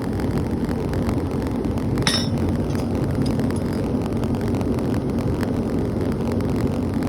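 A forge running with a steady, low, rushing noise, and a single metallic clink about two seconds in.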